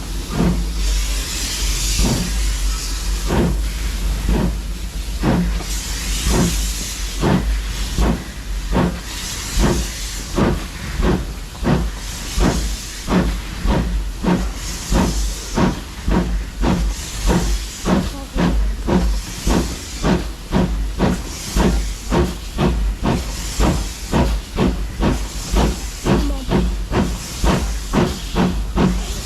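Steam locomotive working, with a regular beat that gradually quickens and a hiss of steam that swells and fades over a steady low rumble.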